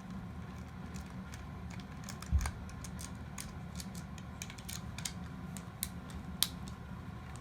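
Scattered light clicks and taps of small plastic toy-robot parts and tools being handled during disassembly, with one dull thump about two and a half seconds in, over a steady low hum.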